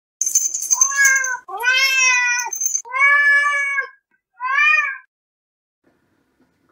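Domestic cat meowing: four drawn-out meows, each rising and then falling in pitch, the last one shorter, then the cat falls quiet.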